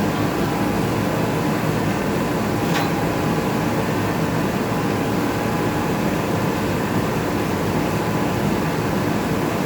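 Steady, even rumble of a heavy vehicle's engine running, with one sharp click about three seconds in.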